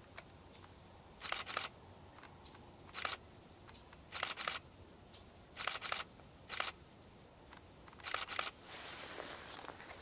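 Pileated woodpecker chiselling into a tree trunk, digging a cavity after carpenter ants: about six short bouts of a few sharp pecks each, spaced a second or so apart, with a softer scraping sound near the end.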